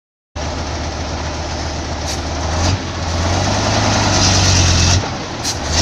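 Heavy diesel engine of a piece of construction machinery running with a steady low hum and noisy clatter, cutting in abruptly about a third of a second in and shifting in level twice.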